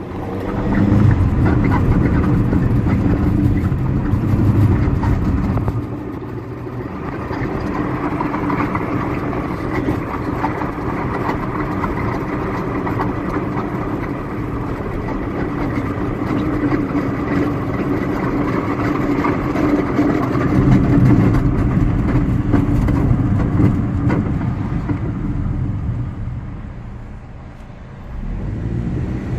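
A car driving: steady engine and road noise that eases off briefly near the end, then picks up again.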